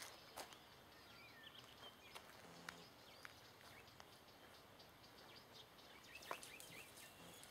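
Near silence outdoors: faint background, a few scattered faint clicks, and some faint short bird chirps about a second and a half in.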